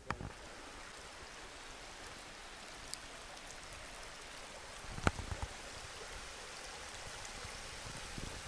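Shallow snowmelt stream running over rocks under snowbanks, a steady rush of water. A short knock stands out about five seconds in.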